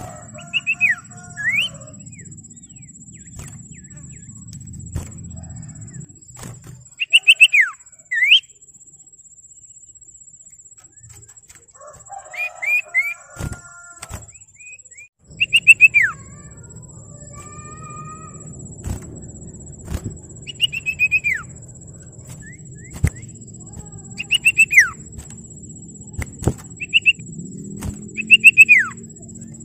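Common iora (sirtu, cipoh) singing: short phrases of a few quick high notes, each ending in a falling whistle, repeated every few seconds. A low steady hum runs underneath.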